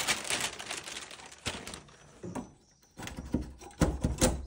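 Scraping and rustling, then a few sharp knocks, as swiftlet nests are pried off wooden roosting planks during harvest.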